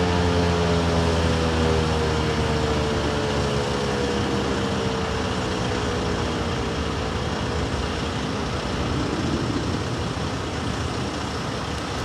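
ASC T-128 electromechanical outdoor warning siren winding down at the end of its test, its tone slowly falling in pitch and fading out about two-thirds of the way in. Steady road traffic noise continues underneath.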